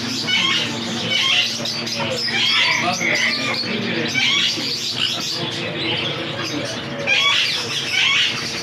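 Many caged birds chirping at once, short calls overlapping all through, over a steady low hum.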